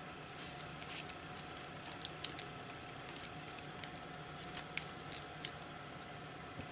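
Clear plastic sleeves holding artist trading cards being handled and shuffled: light crinkles and a scatter of small clicks, which stop about five and a half seconds in.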